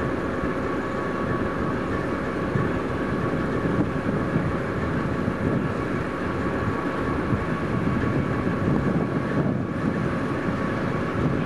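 A 2TE116 diesel locomotive section's 16-cylinder 5D49 diesel engine idles steadily as the section turns on a turntable. A steady whine sits over the engine's rumble.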